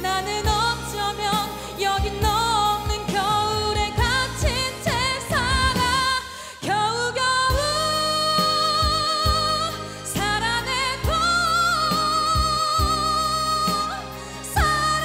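A woman sings a Korean pop ballad into a handheld microphone over a backing track, with heavy vibrato. She holds two long notes in the second half.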